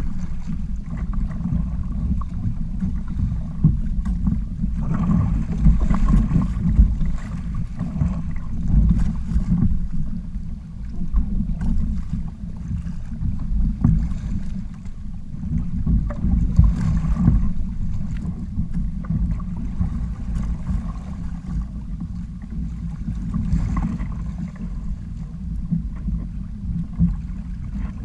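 Wind buffeting the microphone of a sail-rigged outrigger kayak under way on choppy sea, with water splashing and slapping around the hulls.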